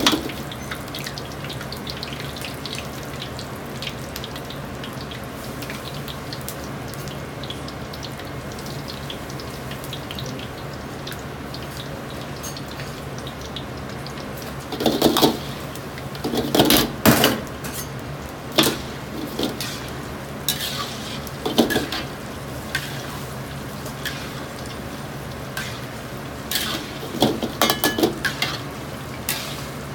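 Chicken pieces deep-frying in oil in an iron wok: a steady sizzling hiss over a low steady hum. Bursts of metal clatter from the wok and ladle come several times around the middle and again near the end.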